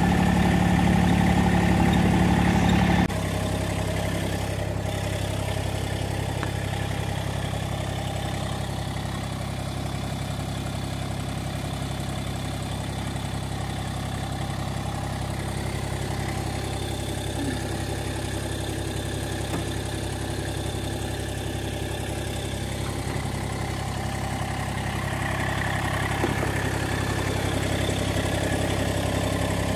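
Tractor engine running steadily at low speed. It drops suddenly to a quieter, steady note about three seconds in.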